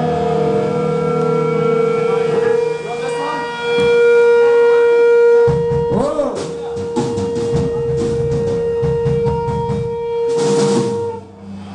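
Live band amplified through a bar PA: a long steady guitar feedback tone rings over drum hits and cymbal strikes, with a cymbal crash near the end, and the tone cuts off shortly before the band comes back in.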